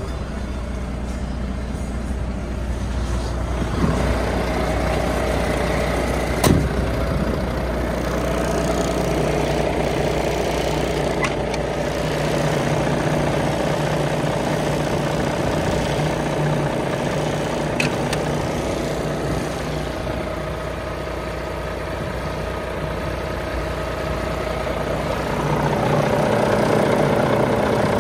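Volvo FMX 460's 13-litre six-cylinder diesel idling steadily, with two sharp knocks a few seconds in.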